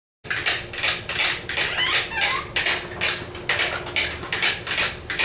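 A utensil beating in a bowl, a quick clatter of strikes against the bowl at about three or four a second, starting abruptly.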